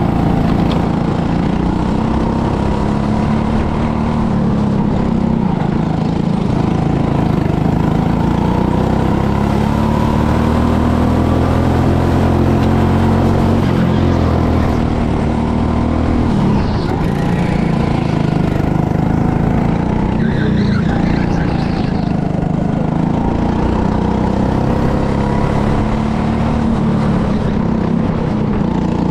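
Go-kart engine running loud from the driver's seat, its pitch rising and falling over and over with the throttle.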